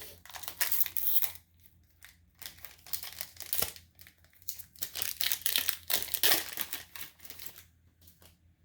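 Foil booster-pack wrappers crinkling and tearing as trading-card packs are picked up and opened, in several bursts of rustling that die down near the end.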